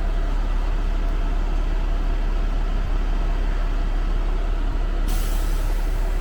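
Concrete pump truck's diesel engine running steadily as a low, even rumble. About five seconds in, a sharp hiss of air cuts in for about a second.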